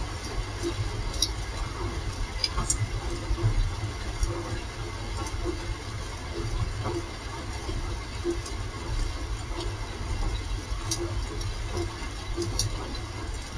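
Rain falling, with sharp drip ticks landing irregularly over a steady low rumble.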